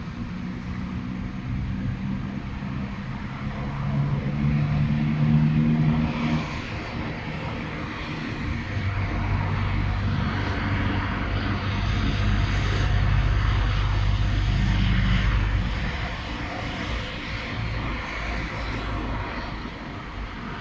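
Motor engines running, with a low hum that swells twice and fades over a steady hiss.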